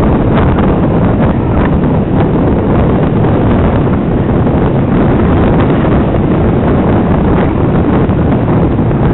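Wind buffeting the microphone of a MUVI micro head camera on a moving mountain bike: a loud, steady low rush and rumble.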